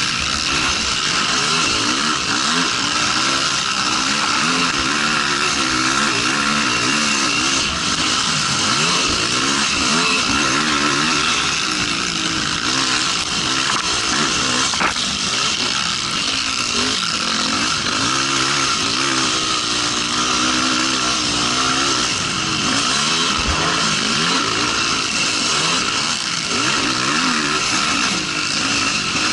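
Racing quad (ATV) engine at full race pace, heard from on board, its pitch rising and falling without pause as the throttle opens and closes and the gears change. A steady rushing hiss runs underneath.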